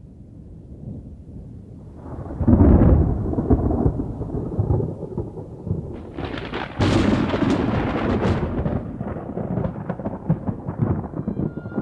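Thunder: a low rumble builds into a loud clap about two and a half seconds in, then a sharper, crackling clap near seven seconds, rolling on and slowly fading.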